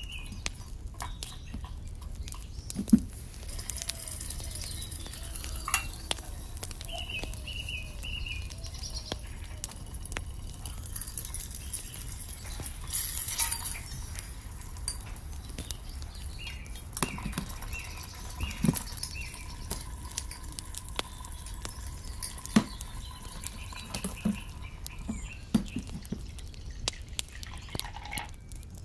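Small metal cooking utensils in a miniature kitchen: a spoon stirring and clinking against a tiny metal pot and bowls, with a few sharp knocks, over a steady low hum. Short runs of high chirps come now and then.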